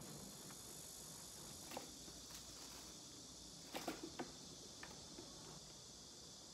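Soft clicks and knocks of a pop-up toaster being loaded and its lever pressed down, the loudest cluster about four seconds in, over a steady faint high hiss.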